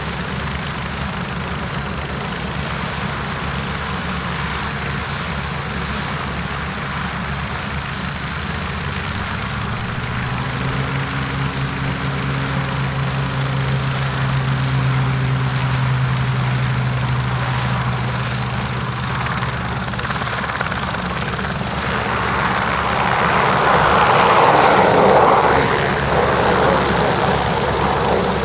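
An Aérospatiale SE3130 Alouette II helicopter's Turbomeca Artouste turbine and main rotor running on the ground and then lifting off. A steady low hum rises a little in pitch about ten seconds in, and a loud rush swells to its peak a few seconds before the end as the helicopter leaves the ground.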